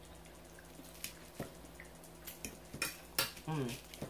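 Eating at close range: cutlery clicking and tapping against a dish, with chewing between the clicks. A short hummed 'mm' with a falling pitch comes near the end.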